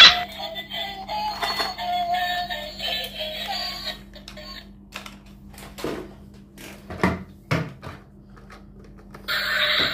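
Electronic melody from a battery-operated toy train, after a loud click at the start; the tune stops about four seconds in. A few knocks follow as a plastic toy bus is handled, and another electronic toy tune starts near the end.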